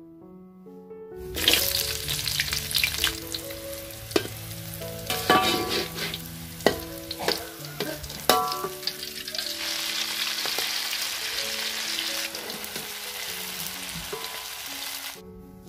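Food sizzling in hot oil in a steel wok, starting about a second in. In the first half, sliced garlic, shallot and chili are stir-fried while a metal spatula and skimmer clack and scrape against the wok. In the second half, tofu-and-egg fritter batter fries with a steadier hiss. Soft background music with piano-like notes plays underneath.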